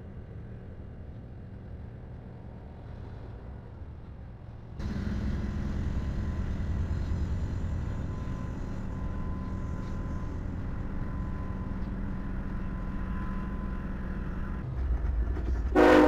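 Freight train rolling past: a steady low rumble of the locomotive and cars that gets abruptly louder about five seconds in. Near the end comes a short, loud locomotive horn blast.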